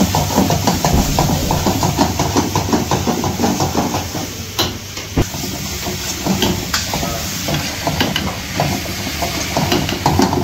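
Chilli chicken sizzling and hissing in a wok over a high gas flame as the pan flares up, with a metal ladle stirring and scraping quickly against the wok. There are a couple of sharper knocks of the ladle on the pan about four and five seconds in.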